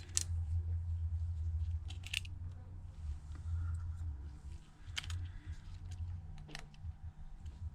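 A handful of sharp small clicks from tools and connectors on an opened iPhone 7 Plus as the display's cables are unclipped, over a steady low hum.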